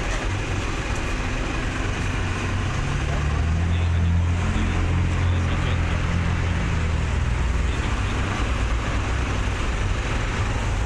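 Road traffic at a city crossing, with cars passing. A vehicle engine's low, steady drone swells about three seconds in and eases off a few seconds later.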